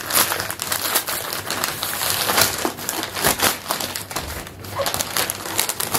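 Brown kraft-paper mailer being torn open and crumpled by hand: a steady, irregular run of paper crinkles and rips.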